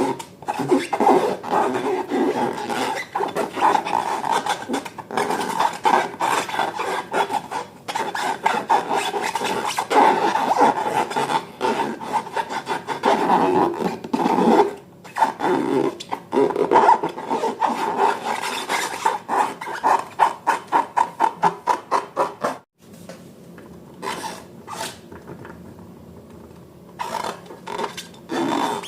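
Slime being squished and worked, a dense run of rapid, noisy rubbing strokes. It goes much quieter for a few seconds about three quarters of the way in, then starts again near the end.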